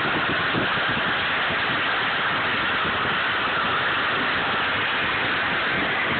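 Steady rushing noise of wind and rolling wheels on asphalt while the toy Jeep is towed along at speed, with no changes in level.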